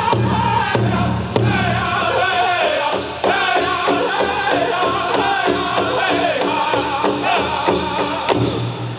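Powwow drum group singing in unison over steady beats on a big drum, accompanying a chicken dance.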